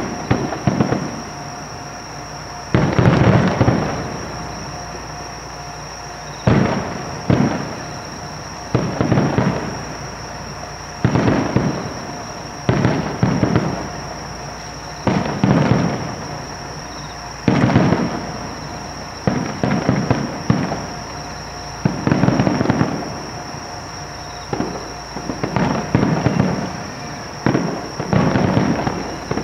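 Aerial fireworks shells bursting, a booming bang every one to two seconds at an uneven pace, each trailing off in a rolling echo.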